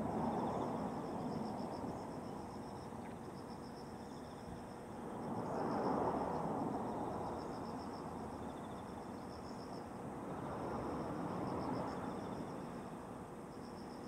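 Insects singing in repeated high pulsed trills, phrase after phrase, over a broad outdoor rush that swells and fades twice, like distant road traffic.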